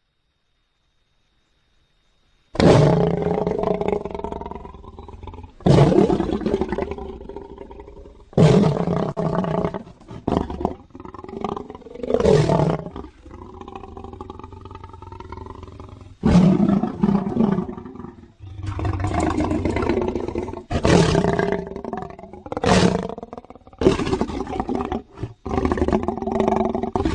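Big-cat creature sound effect built from lion roar sounds: a series of about ten deep roars and growls, each starting loud and trailing off, after a silent gap of about two and a half seconds.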